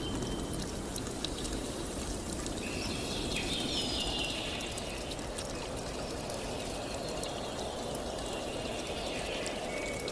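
Steady rush of flowing water, with a few faint high calls, likely birds, about three to five seconds in.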